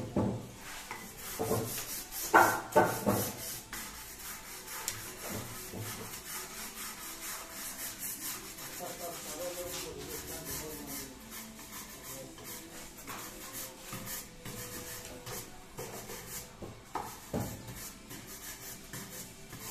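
A hand scraper rasping old finish off a wooden table base in short, repeated strokes. A few loud knocks come in the first three seconds.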